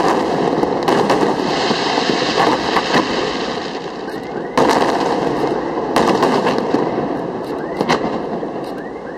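Aerial fireworks display: shells bursting with sharp bangs about every one to two seconds, the loudest about four and a half seconds in, over a continuous dense crackle.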